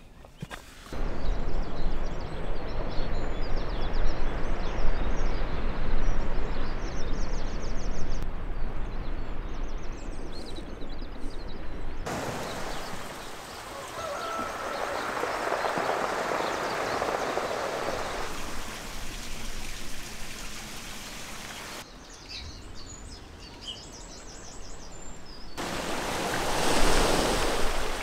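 Outdoor wind noise rumbling on the microphone, with small birds trilling and chirping in several stretches. The sound cuts abruptly between stretches.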